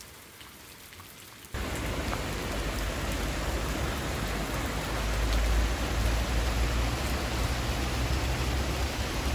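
A small stream rushing and splashing over rocks, a steady rush of water that starts abruptly about a second and a half in after a quieter moment.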